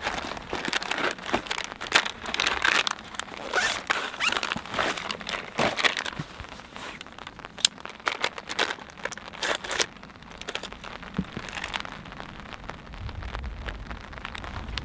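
Close-up crinkling and rustling, like crinkly material being handled, in a quick irregular run of crackles for about ten seconds that then thins out and goes quieter.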